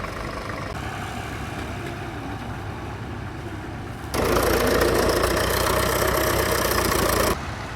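Vintage tractor engine running steadily at idle. About four seconds in, the engine sound jumps abruptly louder and fuller for about three seconds, then drops back just as suddenly.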